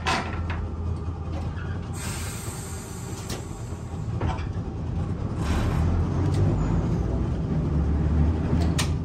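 Vintage electric tram running along its track: a steady low rumble of wheels and motor that grows louder about halfway through. There is a brief hiss a couple of seconds in and a few sharp clicks.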